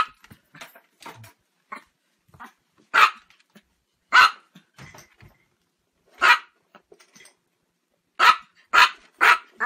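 Chihuahua barking: single sharp, high barks a second or two apart, then three in quick succession near the end.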